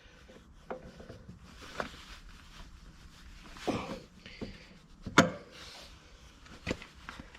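A few scattered metal clinks and knocks, the loudest about five seconds in, as a spanner tightens the locking nut on a plough's new depth wheel stop.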